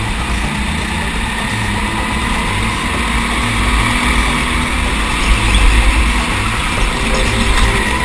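Go-kart engine running at racing speed, picked up by the kart's onboard camera, with a low rumble that grows louder just past the middle.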